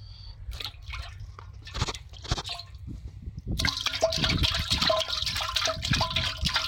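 Water splashing and sloshing in a pot of live, freshly caught fish as a hand reaches in among them and the fish thrash. A few scattered knocks and rustles come first; the heavy splashing starts suddenly about halfway through.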